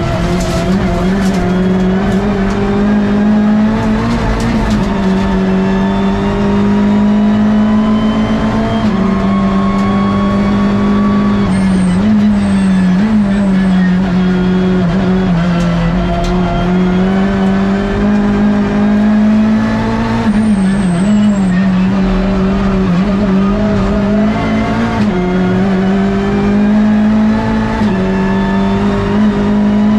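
Hyundai i30 N TCR race car's turbocharged 2.0-litre four-cylinder engine at racing speed, heard loud from inside the cockpit. Its note climbs slowly under throttle and drops briefly at gear changes and braking a few times.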